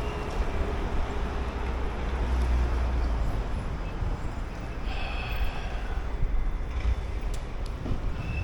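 Steady low rumble of outdoor city background noise, with faint high tones about halfway through.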